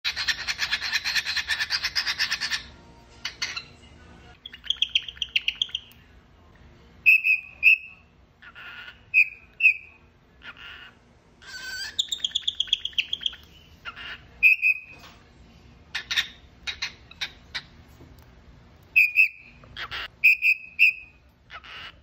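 Cockatiel calling and whistling: a harsh, rapidly pulsed call for the first two and a half seconds, then a string of short clear whistled notes and quick chirping trills with pauses between them.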